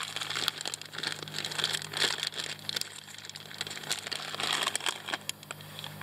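Plastic bag of dried pasta crinkling and rustling as it is handled and tipped over a pot, with scattered irregular clicks and rattles.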